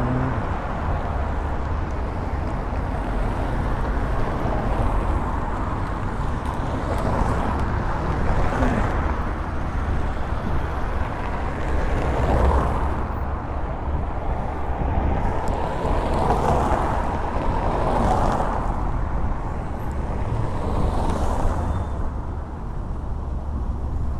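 Road traffic on a busy city square: cars and scooters driving past in several swells, over a steady low rumble of wind buffeting the phone's microphone.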